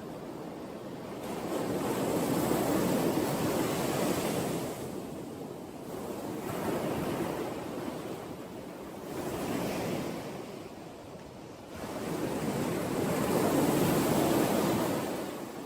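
Sea waves breaking and washing on a shore in slow surges that swell and fade, the biggest about two seconds in and again near the end.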